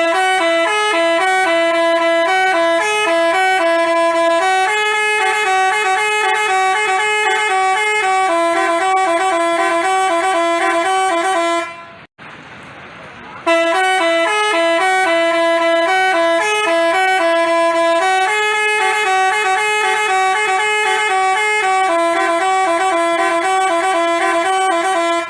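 Telolet-style Basuri bus horn playing a multi-note melody of steady, clear tones. The tune runs about twelve seconds, breaks off for a second and a half, then plays again.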